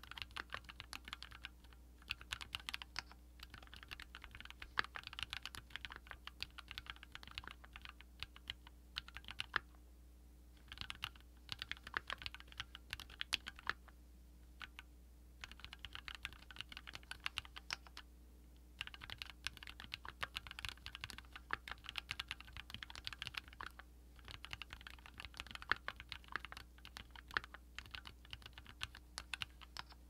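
Stock Keychron Q1 knob-version mechanical keyboard with lubed Turquoise Tealios linear switches and CMK keycaps, typed on quickly in steady bursts of keystrokes with a few short pauses.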